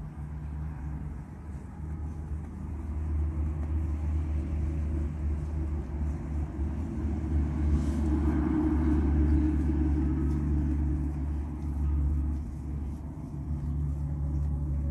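A steady low rumble with a hum, like a motor running, swelling in the middle and easing off toward the end. Over it, faint rustling of dry straw as a calf tugs and eats at a haystack.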